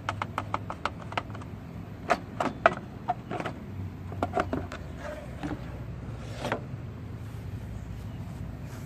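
Quick run of small metallic clicks, then scattered clicks and knocks, from hand work releasing the lawnmower's stuck brake-bar cable end.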